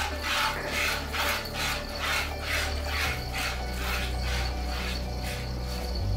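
A cow being milked by hand: streams of milk squirt into a pail in a steady rhythm, about three squirts a second as the hands alternate.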